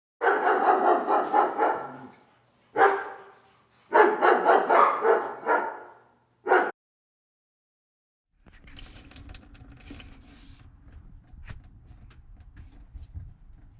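Dog barking and vocalising in four loud bursts, the longest about two seconds. After a short silence comes a quieter stretch of rustling with scattered clicks.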